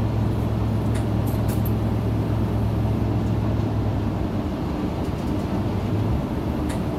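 Steady low drone of an Isuzu KL-LV280N1 route bus's engine and running gear, heard from inside the cabin, with a few light ticks about a second in.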